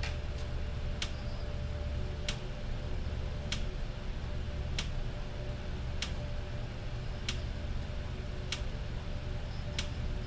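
Sharp, clock-like ticks repeating evenly about every one and a quarter seconds, eight in all, over a steady low hum.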